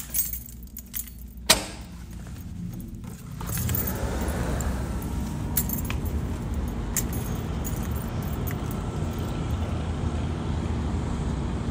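Rattling and clicking, with one sharp knock about a second and a half in. Then, from about three and a half seconds in, the Dodge Hellcat's steady low rumble of engine and road noise.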